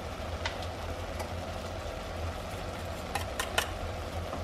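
Ground beef and onions sizzling steadily in an Instant Pot's steel inner pot, over a low steady hum. There are a few light clicks, with a quick run of three a little after three seconds in.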